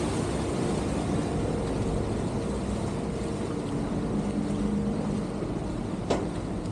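Vaporetto waterbus under way: its diesel engine runs steadily under the rush of water and wind. A single sharp knock comes about six seconds in.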